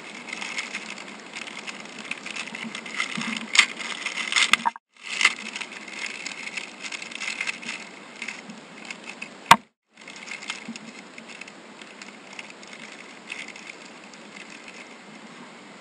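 Clear plastic packaging bag crinkling and rustling as it is handled and opened, in a dense, irregular crackle. A single sharp click comes about nine and a half seconds in, and the sound cuts out briefly twice.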